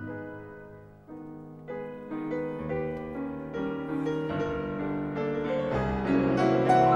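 Steinway concert grand piano playing a classical passage, its notes coming thicker and growing steadily louder.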